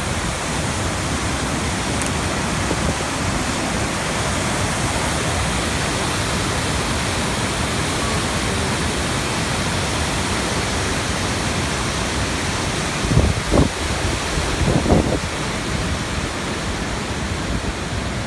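Steady rushing of the Temperance River waterfall, an even, unbroken wash of water noise. A few brief low thumps come about two-thirds of the way through.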